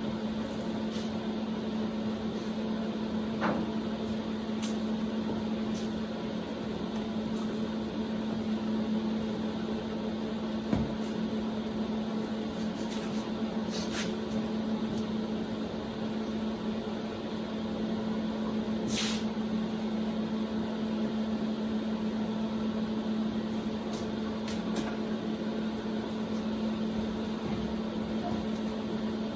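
Welder switched on and running idle, its cooling fan and transformer giving a steady electric hum. A few faint ticks sound over it.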